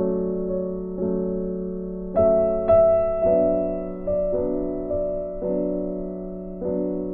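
Soft background piano music: slow chords struck about once a second, each note ringing and fading.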